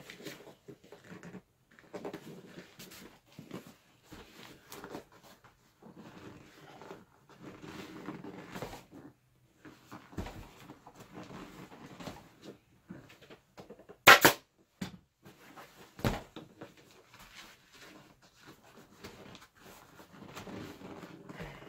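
An ATV seat with a leatherette cover being handled and turned over on a worktable: irregular rustling, rubbing and light knocks of the cover and plastic seat base. Two sharp, loud bangs stand out, about fourteen and sixteen seconds in.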